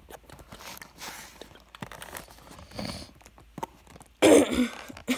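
Faint taps and scuffs of fingers working at a die-cast toy's plastic packaging close to the microphone, then about four seconds in a person's short, loud cough.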